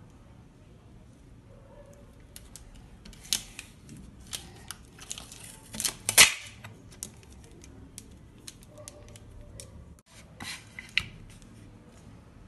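Clear adhesive tape crackling and ticking as it is pulled and pressed down onto a wooden cutting board, a run of sharp irregular crackles, loudest about six seconds in.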